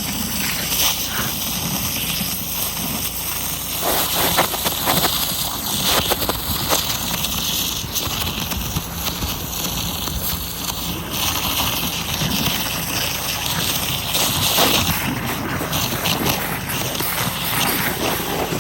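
Yamaha gas pressure washer running steadily, its 3100 PSI zero-degree jet blasting into a pumpkin and cutting through the flesh.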